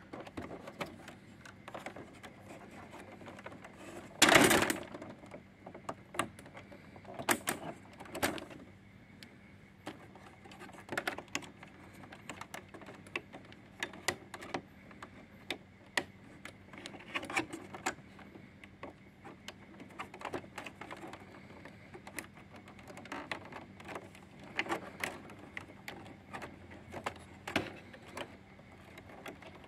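Small plastic wiring-harness plugs being pushed into their sockets on a Brother MFC-J4620DW printer's circuit boards, with the cables being handled: scattered light clicks and rustles, and one louder handling noise about four seconds in.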